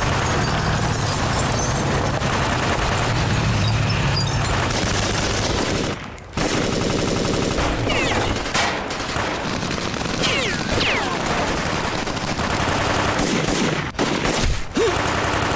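Dense automatic fire from several assault rifles, bursts overlapping one another, with a brief break about six seconds in.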